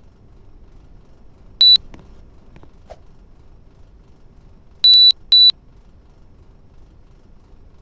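Air conditioner unit giving short, high electronic beeps: one beep, then about three seconds later two more close together, over a faint steady hum.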